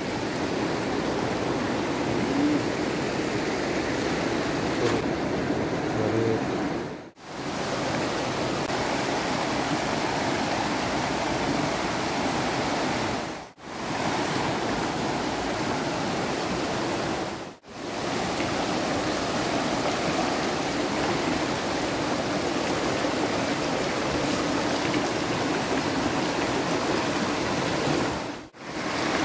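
Shallow rocky river rushing steadily over stones and through rapids. The sound drops out briefly four times.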